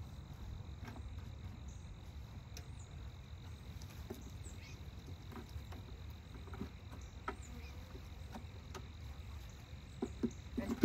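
Scattered light knocks and clicks of a beehive's frames and boxes being fitted back together, over a low rumble and a faint steady high-pitched tone.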